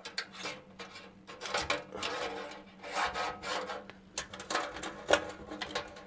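Hard plastic PC front cover being handled against the metal case: irregular rubbing and scraping, with a few sharp clicks and knocks.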